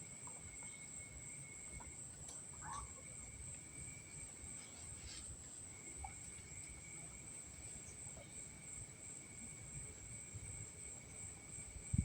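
Insects calling steadily: a continuous high-pitched trill with a lower, steady buzzing call that breaks off briefly twice, over a faint low rumble.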